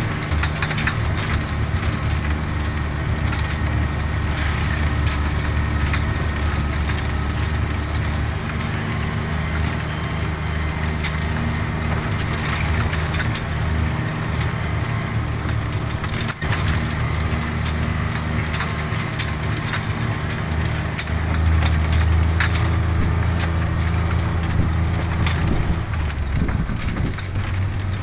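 Engine of the vehicle carrying the camera, running steadily while on the move, with many small clicks and rattles over it. The engine note bends and settles at a new pitch about two seconds before the end.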